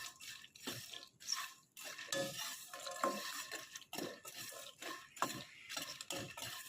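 Split kabok (wild almond) nuts being stirred while dry-roasting in a pan over low heat: irregular scraping of the spatula on the pan and clicks of the nuts rattling against it.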